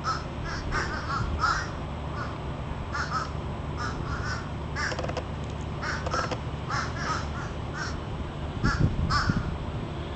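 Crows cawing again and again in short, irregular runs of calls, drawn by an osprey feeding on prey they want a share of. A brief low rumble about nine seconds in.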